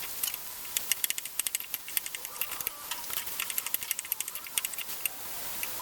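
Food frying in hot oil: a steady sizzle with many sharp, irregular pops and crackles, thinning out near the end.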